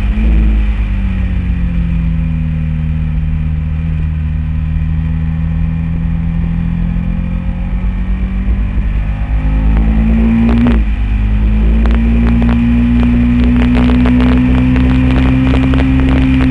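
Honda VTR1000 SP1's 90-degree V-twin engine heard from the bike at track speed, with wind rush. The engine note holds and slowly climbs, drops sharply in a gear change about eleven seconds in, then rises and holds steady at high revs while the bike leans through a corner.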